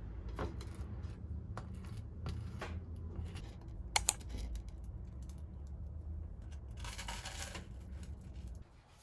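Small clicks and knocks of household objects being handled over a low steady hum, with a sharper double click about four seconds in and a short rustle around seven seconds; the sound cuts out just before the end.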